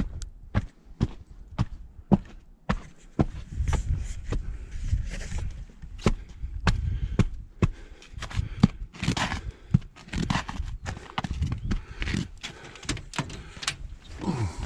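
Footsteps of a person walking in snow boots, steady steps about two a second, with some knocks and thumps mixed in.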